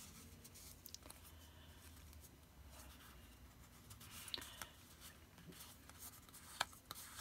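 Near silence, with faint rustles and a few light taps as hands turn over and handle a paper card panel, the clearest taps about four seconds in and near the end.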